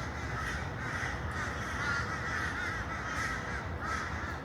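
Birds calling: a dense, continuous chorus of overlapping calls.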